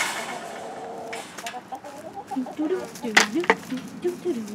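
Chickens clucking: a run of short, bending calls, with two sharp clicks about three seconds in.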